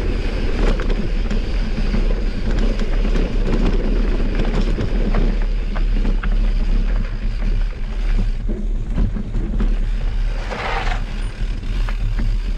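Mountain bike being ridden down a dirt trail: tyres rolling over dirt and rocks and the bike rattling and clicking over the bumps, over a steady low rumble.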